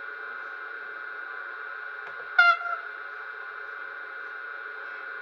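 H0 model Vectron electric locomotive's sound decoder playing standing-loco running sounds through the model's small loudspeaker: a steady electrical hum with a high tone. About halfway through comes one short horn blast, the loudest sound, sagging slightly in pitch as it stops.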